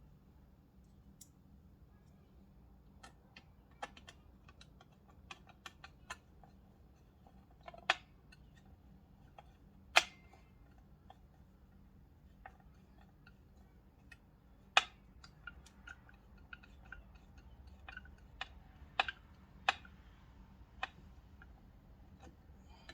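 Irregular clicks and light knocks of small metal parts and hand tools being handled and fitted during assembly of a vintage fire alarm box, with a few sharper taps standing out among the softer ones.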